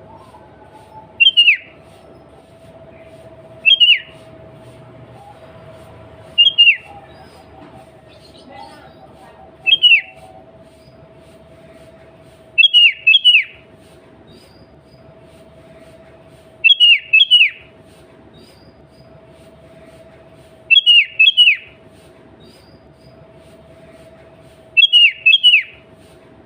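Sooty-headed bulbul calling: short, sharp falling notes repeated every three to four seconds, single at first and then in quick pairs from about halfway through. A faint steady hum lies underneath.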